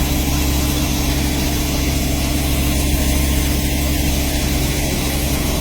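Rice combine harvester's diesel engine running steadily, a constant drone with a low steady hum.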